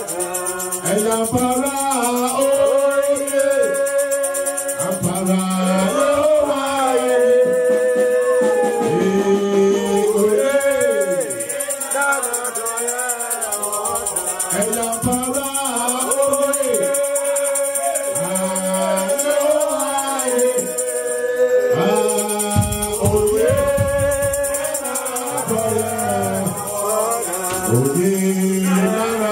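Worship singing over music, with a shaker rattling steadily along.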